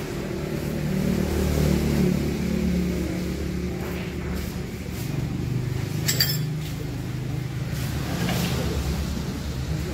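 One sharp click of a billiard shot, balls striking each other, about six seconds in, with two fainter clicks before and after it, over a steady low hum.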